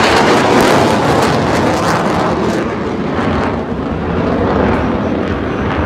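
Jet aircraft in a low flyover: a loud roar that fades as the high end drops away from about two and a half seconds in, as the jets pass and move off.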